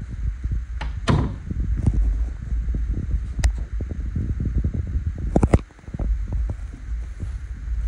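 Handling and walking noise on a handheld phone's microphone: a steady low rumble with soft footfalls. Sharp knocks come about a second in and again, louder and doubled, about five and a half seconds in.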